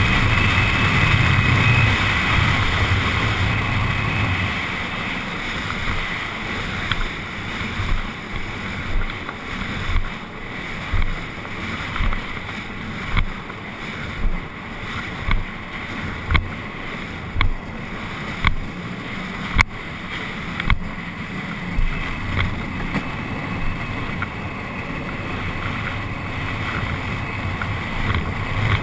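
Wind rushing over the camera and tyres rolling on asphalt as a carrilana, an engine-less gravity racing cart, coasts downhill. Through the middle comes a run of sharp knocks about once a second.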